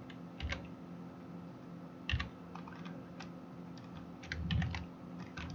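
Laptop keyboard keys clicking in irregular, scattered taps as the computer is operated, over a faint steady hum.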